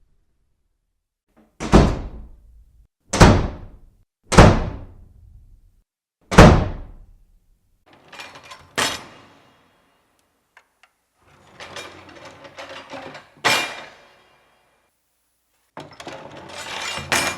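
A series of door sounds: four sharp door slams, each dying away quickly, in the first seven seconds. After that, quieter rattling of a door's handle and latch, each stretch ending in a thud as the door shuts, with a longer rattle building near the end.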